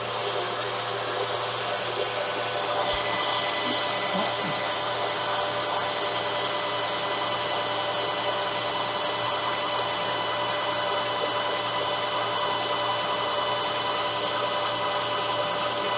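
Metal lathe running steadily, several fixed tones over a hiss, turning a steel pipe into a homemade M42×1.5 threading die that is cutting a thread on it.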